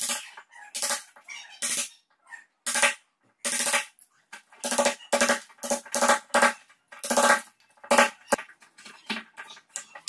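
Claw hammer striking the handle end of a wood chisel again and again at an irregular pace, each blow with a short metallic ring, as the chisel cuts a recess for a bowtie key into a hardwood table edge.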